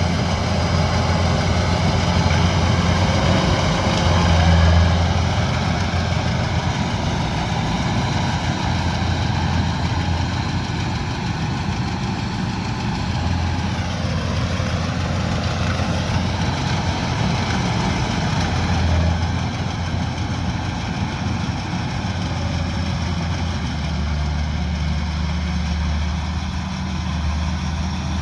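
Kubota DC-105X combine harvester's diesel engine running steadily, with a brief dip and recovery in pitch about halfway through.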